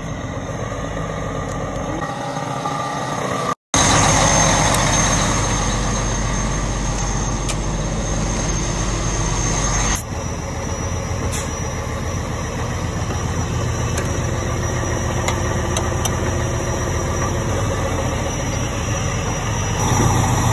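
A vehicle engine running steadily at idle, its sound changing abruptly twice, with a thin high whine during the middle part.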